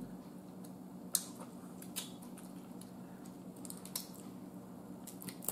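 A few small, sharp cracks and clicks of snow crab shell being picked apart by hand, spaced a second or two apart, over a steady low hum.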